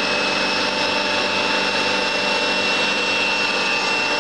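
16A20F3 CNC screw-cutting lathe running, a steady mechanical hum and whine with several held tones, one of them high-pitched.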